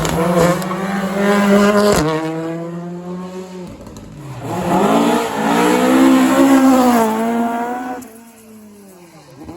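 Rally car engines at full throttle on a sprint stage, revving with pitch rising and falling through gear changes as cars pass. The sound drops off sharply about two seconds in, swells again midway, and fades to a fainter falling engine note near the end.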